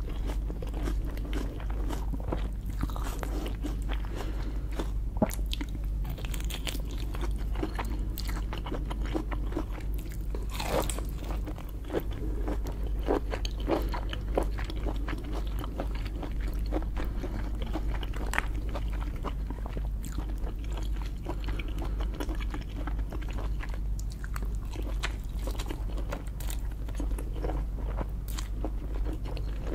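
Lobster being eaten: crunching, biting and chewing, with many scattered short sharp cracks and clicks.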